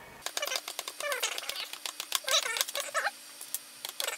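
A sharp pick being punched through FEP film into the screw holes of a resin-printer vat frame, making a rapid scatter of small clicks and crackles. Three short squeaky pitched sounds come about one, two and a half, and three seconds in.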